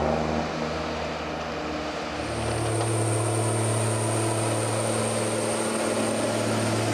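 Diesel engine of an HSM 208F forestry forwarder running steadily. About two seconds in the engine note changes and a high, steady whine comes in.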